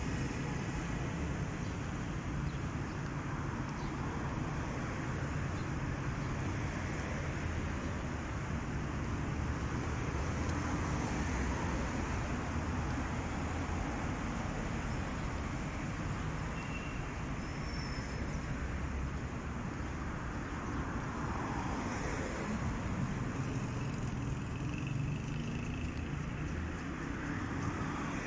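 Steady city road traffic: a constant low rumble of cars, swelling and easing as vehicles pass.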